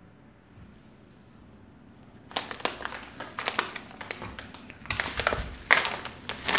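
A metallised plastic packet crinkling and crackling in irregular bursts as hands handle it and turn it over, starting about two seconds in.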